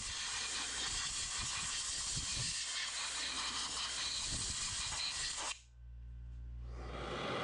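Pneumatic die grinder with a carbide burr running and gouging out a crack in a cast-iron bracket, a steady airy hiss. It cuts off sharply about five and a half seconds in, and a fainter hiss with a low hum builds near the end.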